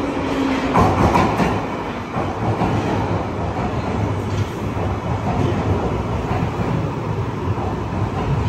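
London Underground Piccadilly line train (1973 Stock) running through the station platform: a steady rumble of wheels on rail, with a burst of clattering about a second in.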